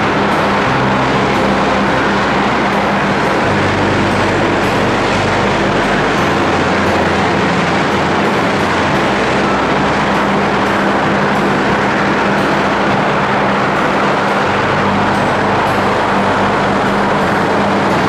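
Loud, steady industrial noise of an electric arc furnace melt shop: a dense, even hiss with a constant low electrical hum underneath.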